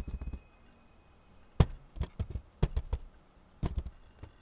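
Computer keyboard keys being typed in short bursts of sharp clicks with quiet pauses between. One louder single keystroke comes about a second and a half in.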